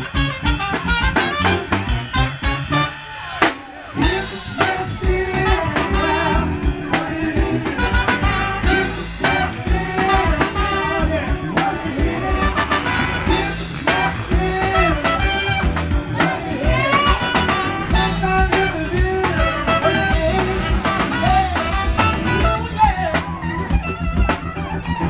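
Live funk band with a full horn section (trumpets and saxophones) playing over drum kit, keyboards and congas. About three seconds in the band stops briefly, then comes back in.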